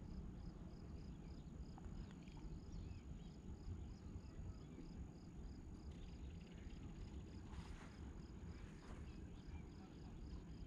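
Faint outdoor ambience: an insect chirping steadily, about three chirps a second, over a low rumble.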